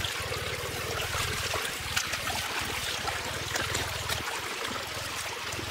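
Water running out of a concrete farm drain pipe and splashing into a shallow muddy pool, with small splashes scattered through it. A low rumble under it stops and starts a few times.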